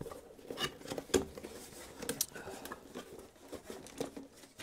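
Gloved hands opening a small cardboard box: flaps pulled back and cardboard rustling, with scattered light taps and scrapes.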